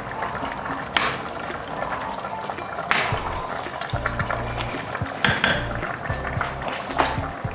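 A plastic spatula stirring and scraping through chicken adobo in a metal pot, knocking against the pot about every two seconds, over the steady bubbling of the simmering sauce.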